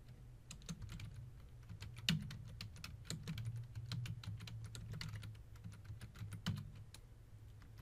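Typing on a computer keyboard: a run of quick keystrokes as a command is entered, over a low steady hum.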